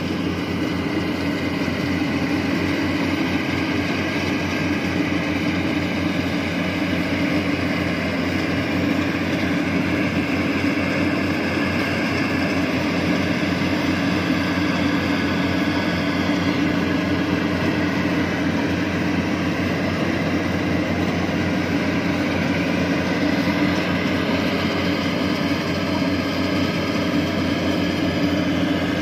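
Yanmar YH850 rice combine harvester running steadily as it cuts and threshes rice: its diesel engine and threshing machinery make a continuous mechanical drone.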